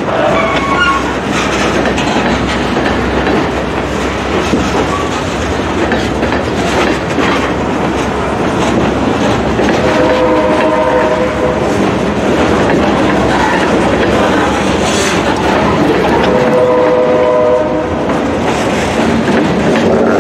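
Freight train cars rolling past close by on jointed track, a loud steady rumble and clack of wheels on rail. Twice, about ten and sixteen seconds in, a steady tone sounds for a second or so over the rolling noise.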